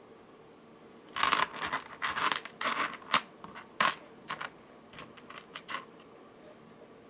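Small hard beads clicking and rattling as they are handled and strung: a run of sharp clicks starting about a second in, fainter taps near the end.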